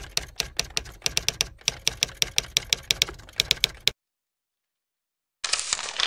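Typewriter-style typing sound effect: a quick run of sharp key clacks for about four seconds, stopping dead into silence. Near the end a loud rustling noise starts, a torn-paper transition effect.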